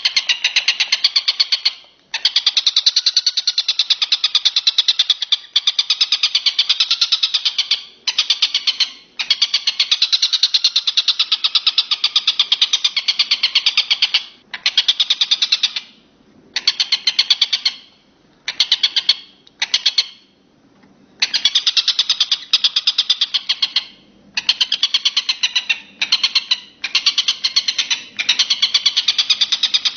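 Rapid, dry ticking chatter in long bouts broken by short pauses, from a masteran recording that mixes a tengkek buto kingfisher with the walang kecek insect.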